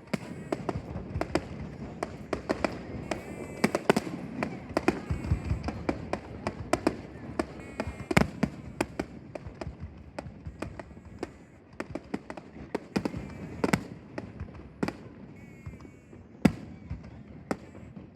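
Aerial firework shells bursting in rapid, irregular succession: sharp bangs with echoing tails, the loudest about eight seconds in and again near the end.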